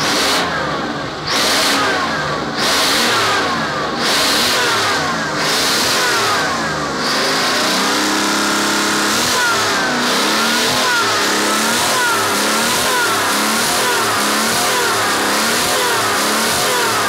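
Supercharged 12V71 Detroit Diesel two-stroke V-12 revved by hand at the throttle. First come about six quick throttle blips, a little over a second apart. From about seven seconds in it is held up at high revs, the pitch swinging up and down.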